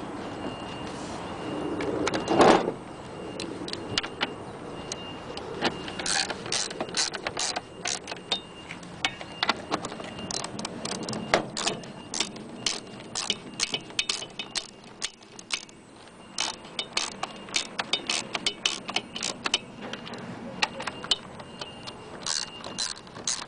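Wrench tightening the 9/16-inch bolts that clamp a Hayward pool pump's housing to its seal plate: quick runs of short metallic clicks and clinks, with one louder knock about two seconds in.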